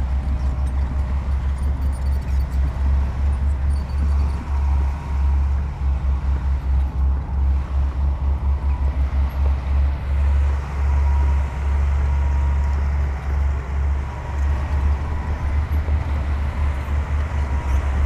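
Heavy diesel earthmoving machinery running, a deep rumble that pulses unevenly.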